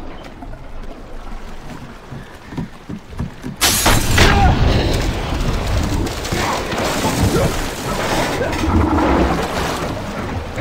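Film sound effects of a boat's cabin flooding: a few knocks, then about three and a half seconds in a sudden loud crash as seawater bursts in, followed by continuous rushing, splashing water.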